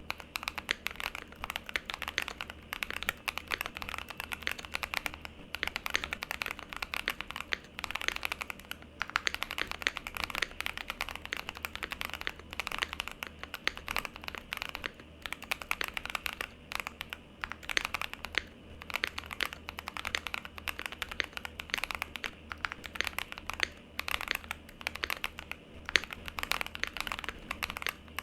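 Continuous fast typing on a mechanical keyboard fitted with Akko V3 Cream Blue tactile switches: dense keystrokes that start suddenly, with a few short pauses.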